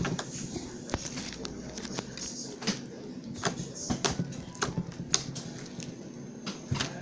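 Freshly made homemade slime being squished and worked by hand, giving scattered small sticky clicks and pops at irregular intervals.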